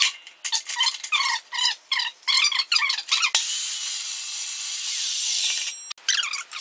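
Squeaky clamp screw of a DeWalt DW872 metal-cutting chop saw's vise cranked in short strokes, then, about three seconds in, the saw's carbide blade cutting through the steel tube of a floor jack handle with a steady high hiss for about two and a half seconds, cut off suddenly. Short squeaky strokes start again near the end.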